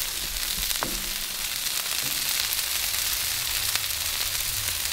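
Beef burger patties and buttered Texas toast sizzling on a Blackstone flat-top griddle as more toast slices go down. A steady frying hiss with scattered small crackles and pops.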